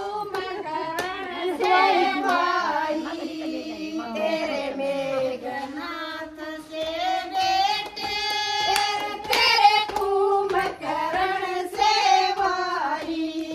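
Women's voices singing a Haryanvi folk song together, a melody with long held notes.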